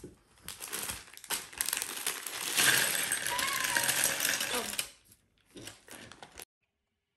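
Clear plastic bag of Lego bricks crinkling as it is shaken and tipped out, the small plastic bricks clattering onto a table. It stops about five seconds in.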